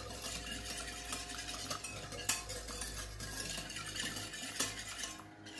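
Hand wire whisk beating eggs in a mixing bowl: a fast, steady swishing and clicking of the wires against the bowl, with a few sharper clinks.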